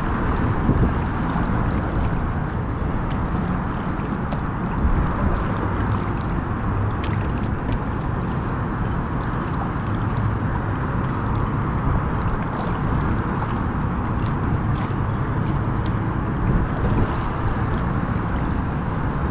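Water sloshing and gurgling against a kayak's hull, a steady rush with a few small splashes.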